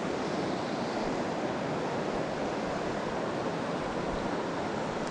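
Steady rushing of a fast glacier river, an even unbroken wash of water noise.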